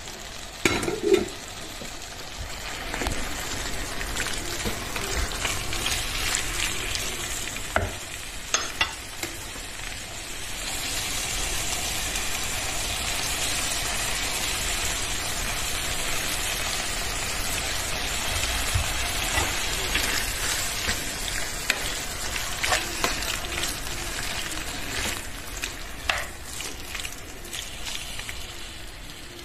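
Chopped eggplant, pepper and tomato sizzling in a frying pan while being stirred with a wooden spoon, the spoon knocking against the pan now and then.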